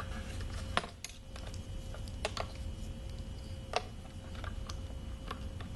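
Scattered small plastic clicks and taps as fuel pump parts (the sending unit and its wiring connector) are handled and fitted, over a faint steady hum.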